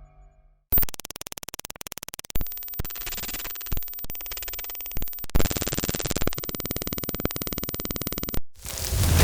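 Synthesized digital glitch sound effect: a harsh, buzzing stutter of rapid electronic pulses that starts abruptly about a second in and jumps between textures in sudden steps. It cuts off near the end and gives way to a loud rushing whoosh that swells and fades.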